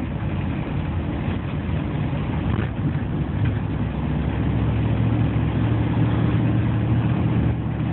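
Steady engine and road noise heard inside the cabin of a four-wheel-drive vehicle driving on snowy roads; a low engine hum grows stronger about halfway through.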